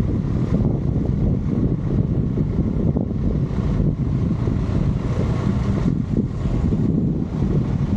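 A vehicle in motion, with a steady low rumble.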